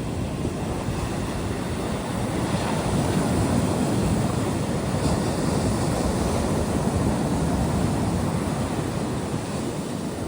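Surf breaking and washing up a sandy beach, a steady rush that swells a couple of seconds in and eases off near the end, with wind buffeting the microphone.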